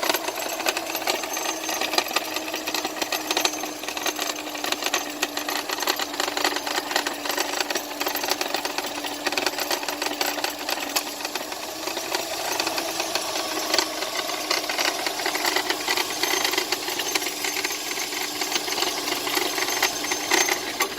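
Subaru Impreza GH8's flat-four engine idling with a fast, irregular metallic rattle, like a screw rolling around, which the owner places near the alternator. This is an intermittent noise that starts suddenly and stops dead, while the idle itself stays smooth.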